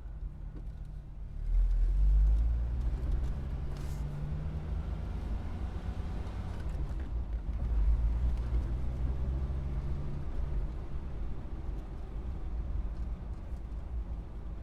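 Car engine and road rumble as the car pulls away: the sound gets louder about a second and a half in and the engine note climbs gently. The engine note drops away about ten seconds in, leaving a low rumble.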